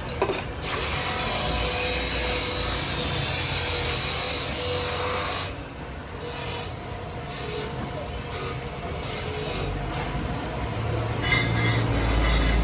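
Hand rasping and scraping at the parts being fitted: one steady scrape lasting about five seconds, then a run of short separate strokes.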